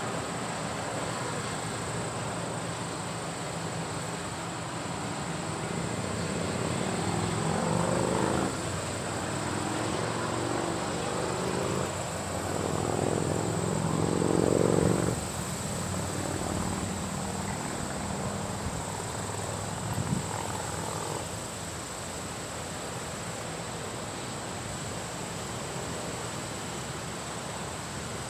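John Deere combine harvester running in a cornfield, its engine and threshing machinery giving a steady drone. It grows louder twice, around eight seconds in and again around fourteen seconds, then settles back.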